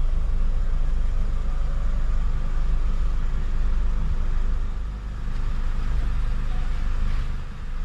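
A car's engine and low rumble heard from inside the cabin as the car rolls slowly forward, a steady low hum.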